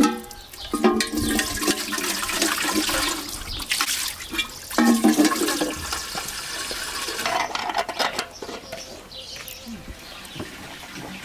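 Water running hard from an outdoor tap, splashing as a kettle lid is rinsed under it and then pouring into a metal kettle as it fills. The rush of water dies away about seven or eight seconds in.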